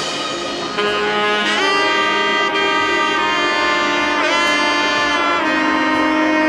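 Background music: a lead melody of long held notes over an accompaniment, with pitch slides about a second and a half in and again past four seconds.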